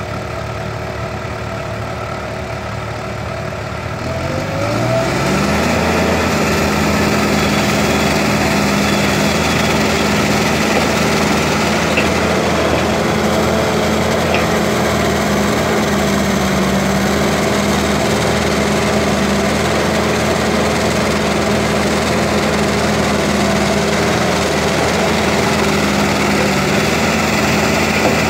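Heavy machinery diesel engine running, revving up about four seconds in and then held steady at higher revs under working load.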